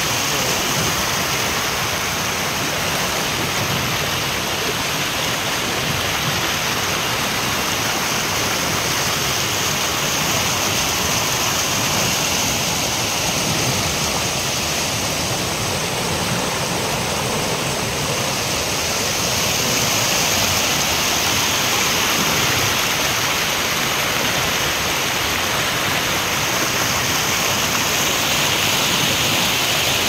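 A small waterfall with water rushing and cascading over rock slabs: a steady, loud rush of water that swells slightly about two-thirds of the way through.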